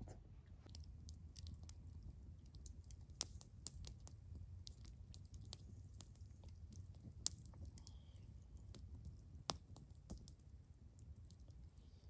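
Campfire wood crackling faintly, with scattered small pops and a few sharper snaps, over a faint steady high-pitched tone.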